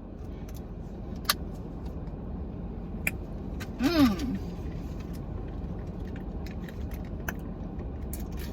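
Steady low rumble of a car cabin with the vehicle running, with a few light clicks and rustles of handling. A brief vocal sound about four seconds in.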